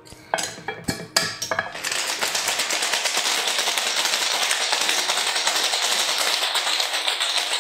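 Ice cubes dropped from a scoop into a glass, a few separate clinks, then about two seconds in a hard shake of the ice in a cocktail shaker: a fast, steady rattle of ice against the walls that stops near the end.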